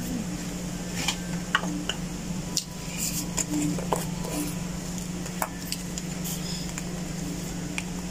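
Scattered light clicks and clinks of kitchen utensils being handled, over a steady low hum.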